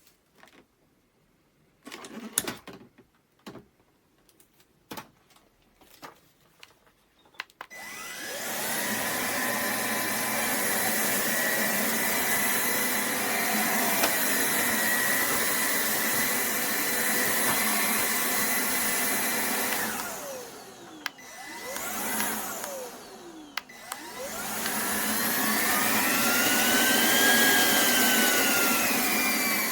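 Cordless stick vacuum (Roborock H60 Ultra) handled with a few clicks, then its motor starts about a quarter of the way in and runs with a steady whine. Around two-thirds of the way in it twice winds down and spins back up, then runs on with a whine that rises and falls in pitch.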